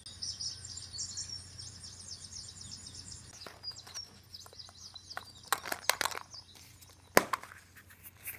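Rapid, high, bird-like chirping for about the first three seconds, then scattered sharp clicks and crackles of a plastic surprise egg and its wrapping being handled, loudest about six and seven seconds in.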